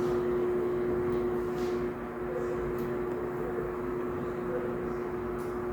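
Steady machine hum at a constant pitch, from an interactive museum exhibit's small motor running.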